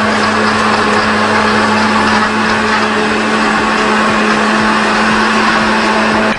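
Countertop jug blender running steadily with a constant motor hum, blending a thin, milky artichoke juice with lemon, honey, water and milk.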